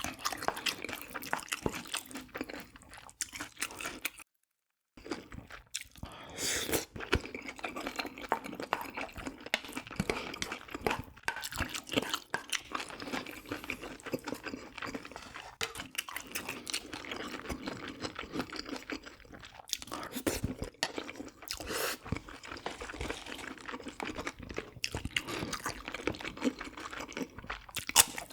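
Close-miked wet chewing and mouth sounds of someone eating a spicy braised pork rib dish, a dense run of irregular smacks and clicks, broken by a brief cut to silence about four seconds in.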